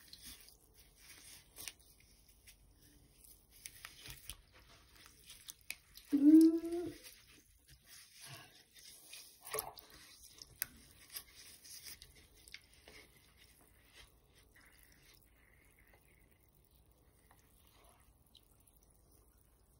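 Water in a filled sink sloshing and splashing softly as a hand squeezes and swishes a bath bomb, with scattered small splashes and a light crackle that fade after about twelve seconds. About six seconds in comes a short cry that rises in pitch, the loudest sound.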